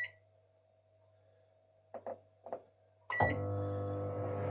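Sharp R272WM microwave's control panel giving a short high beep, then two soft button taps. About three seconds in, another beep comes and the microwave starts running with a steady electrical hum.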